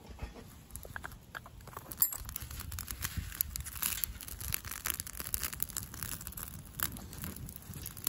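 Dry fallen leaves catching fire in a small steel fire stand, crackling and popping in rapid, irregular snaps that grow denser as the flames spread. One sharp, loud snap about two seconds in.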